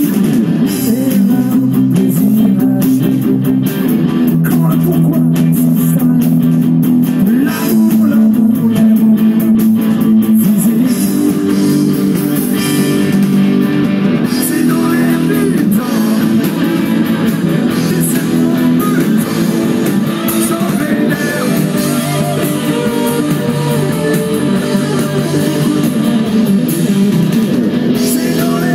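Live rock band playing, with electric guitars, bass guitar and drums.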